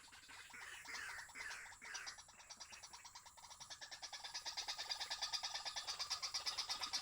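Animal calls: a few short calls in the first two seconds, then a fast, evenly pulsing chirr that grows louder from about four seconds in.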